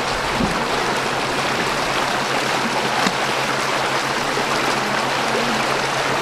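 Steady rush of running water, water pouring over the bank into the shallow flooded pond.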